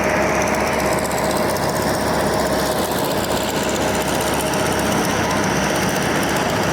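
Piston-engine aircraft running with a steady, loud, rattling drone and a constant tone through it.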